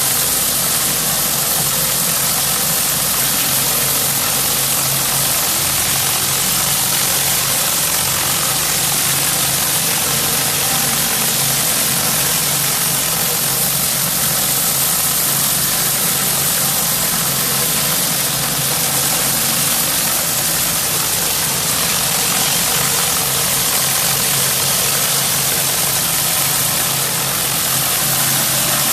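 Engine-driven pressure washer running steadily: a constant engine hum under the loud hiss of the high-pressure water spray.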